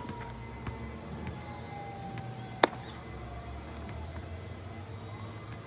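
A single sharp leather pop about two and a half seconds in: a baseball caught in a glove. Under it is a steady low hum, with a faint tone slowly gliding up and down.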